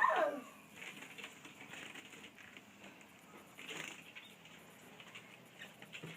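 Small pet birds moving about, with faint scratching, rustling and a flutter now and then. Right at the start comes one short falling call, the loudest sound here.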